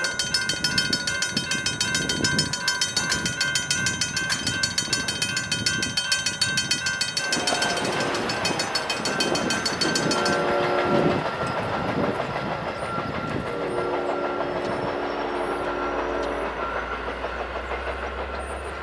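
Railroad grade-crossing warning bell ringing rapidly while a train approaches. The locomotive horn sounds about halfway through and again later, over the low rumble of the train.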